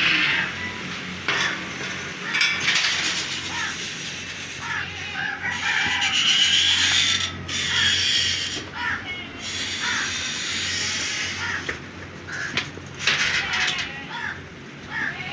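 Cattle tearing and chewing grass in repeated rasping, crunching strokes, with short bird chirps over it.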